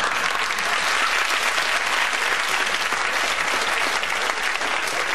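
Studio audience applauding in a steady, dense patter.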